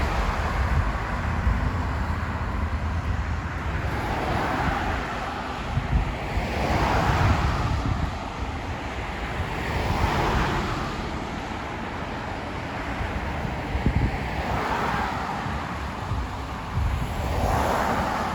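Wind buffeting the microphone in a steady low rumble, with swells of rushing noise that rise and fade every two to three seconds.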